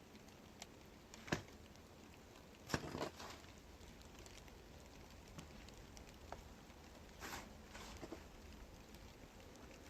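A few scattered sharp clicks and knocks, about six in all, over a low steady background, with a small cluster about three seconds in and another near the end.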